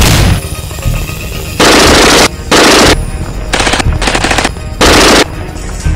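Sound-effect automatic rifle fire in several short bursts, the first about one and a half seconds in, with a low rumbling music bed underneath between bursts.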